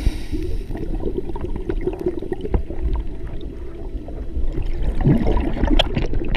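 Underwater sound picked up by a diver's camera: a steady low rumble with gurgling and scattered clicks.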